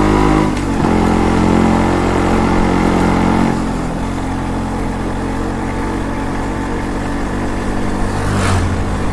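Yamaha RX135 two-stroke motorcycle engine running while riding, with a brief dip about half a second in and quieter from about three and a half seconds in.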